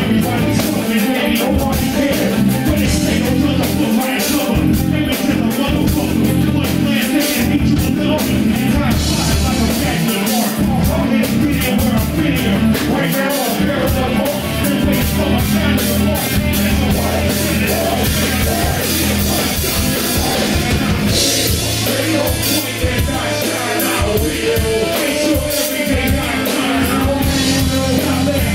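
Live rock band playing loudly, with drums and electric guitar.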